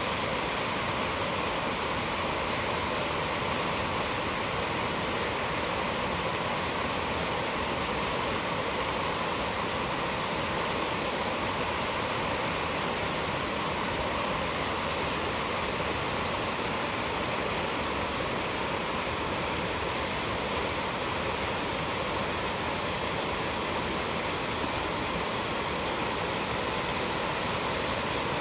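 Steady rushing of a small mountain creek spilling in short cascades over boulders and fallen logs.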